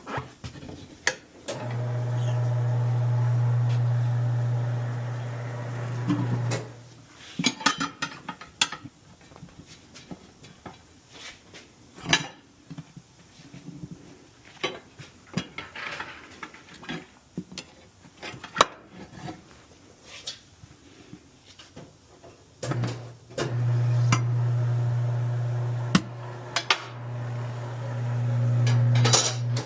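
Impact wrench run twice for several seconds each with a steady hum, spinning lug nuts during a wheel swap. Sharp metallic clinks and knocks of lug nuts, tools and the wheel come in between.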